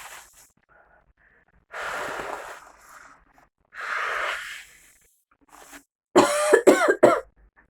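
A woman takes two long, deep, wheezy breaths over a bag of grated raw onion, inhaling its vapour, then gives a short burst of coughs near the end.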